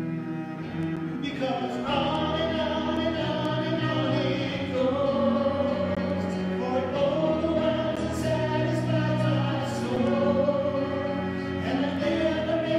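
A man and a woman singing a slow worship song together over sustained cello and keyboard accompaniment; the voices come in about a second and a half in, after a few seconds of the instruments alone.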